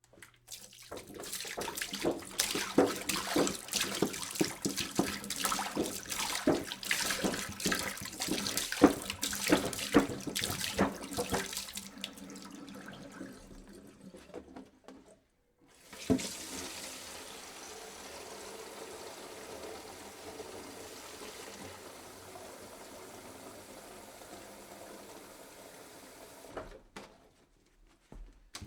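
Water pouring into a jug: first a splashy, gurgling pour for about twelve seconds, then after a brief pause a smoother, steady stream that runs about ten seconds and stops.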